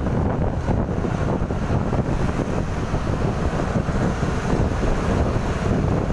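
Heavy wind rumble on the microphone over a steady vehicle noise, even throughout with no horn or other distinct event.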